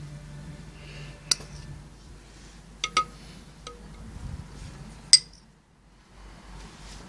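A metal spoon clinking against the dishes as sweet paprika is spooned out and sprinkled: four short ringing clinks, two close together about three seconds in and the loudest about five seconds in.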